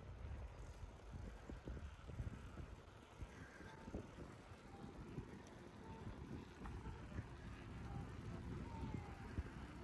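A bicycle rolling along during a ride, with a steady low wind rumble on the microphone and a few small knocks.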